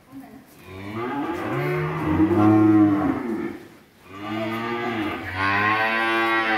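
Cattle mooing: two long moos in a row, each rising and then falling in pitch.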